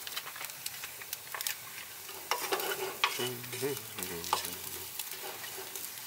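Diced chicken frying and sizzling in a small nonstick saucepan while a wooden spoon stirs it, with scattered clicks and scrapes of the spoon against the pan.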